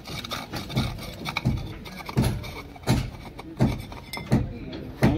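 Regular knocks about every three-quarters of a second as a PVC pipe fitting is twisted loose and pulled off the top of a borewell pipe by hand.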